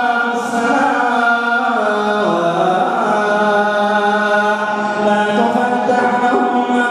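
A man reciting the Quran in a melodic chant, drawing out long held notes in one unbroken phrase, the pitch stepping down about two seconds in.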